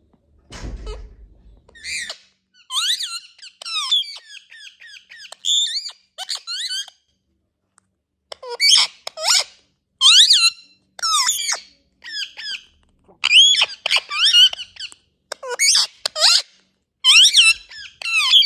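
Indian ringneck parrot calling: a long series of short, shrill chirps and squeaks that sweep up and down in pitch, coming in quick clusters with brief gaps. A brief low thump comes about a second in, before the calls start.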